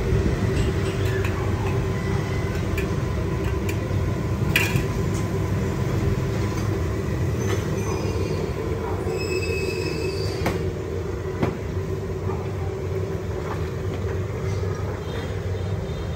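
Steady low mechanical rumble with a constant hum, a few faint clicks, and brief high squeals around the middle.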